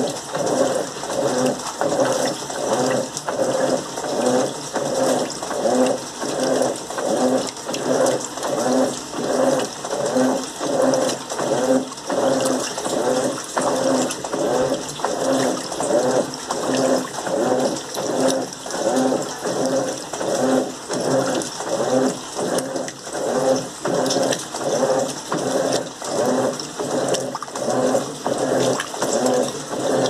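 Electrolux Turbo Limpeza 8 kg (LM08) top-loading washing machine in its wash agitation: the agitator swings back and forth, sloshing the water and clothes in a steady rhythm of about one and a half strokes a second.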